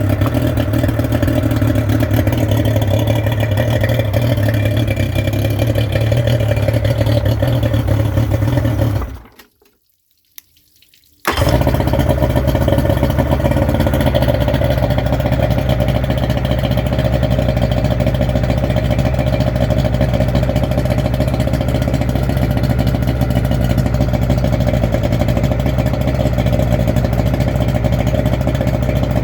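Yamaha 90 two-stroke outboard motor running steadily. About a third of the way in the sound cuts out for about two seconds, then comes back suddenly.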